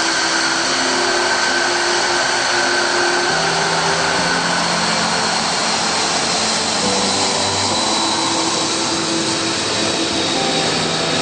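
Jet aircraft engine running steadily, a loud rush of noise with a steady high-pitched turbine whine.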